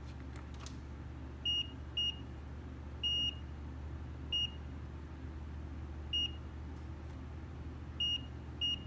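Fluke 17B multimeter's continuity beeper giving about seven short high beeps of uneven length, the longest about three seconds in, over a low steady hum. Each beep marks the probe touching a point on the phone's logic board that is connected to ground, where components are shorted to ground.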